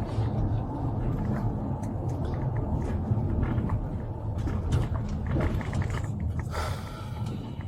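Steady low rumble of a motor vehicle, with scattered small clicks and knocks and a short hiss about seven seconds in.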